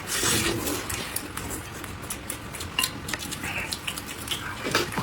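A person eating close to the microphone: wet chewing and sucking noises, with a louder slurping rush just at the start and scattered clicks and taps of chopsticks and dishes.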